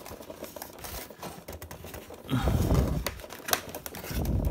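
Clicking and crackling of cardboard packaging and plastic twist ties being worked loose by hand, with two louder, deeper stretches of the box being handled about halfway through and near the end.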